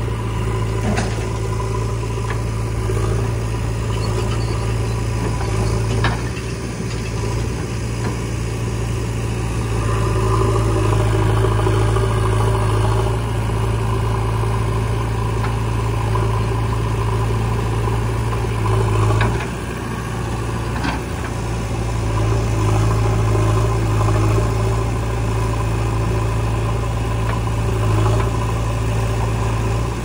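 Diesel engine of a JCB 3DX backhoe loader running steadily under hydraulic load as it works the backhoe arm, swelling in level about a third of the way in and again later, with a brief dip between. A few faint knocks.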